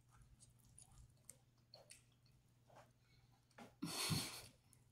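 Faint wet mouth clicks of chewing on a piece of oxtail, then a louder slurping suck near the end as the meat and tendon are sucked off the bone.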